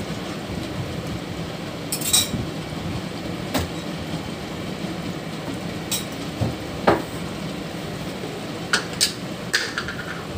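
Metal spatula stirring and clinking against a pan of simmering curry: several sharp clinks spread through, over a steady background hiss.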